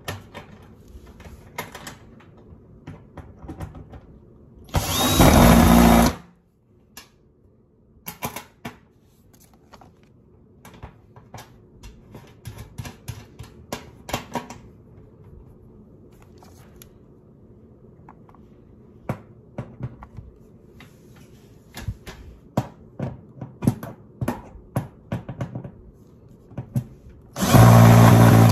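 Hitachi cordless drill driving screws into the corrugated metal panels of a raised garden bed, in two bursts of about a second each: one about five seconds in and one near the end. Between the bursts come scattered light clicks and taps.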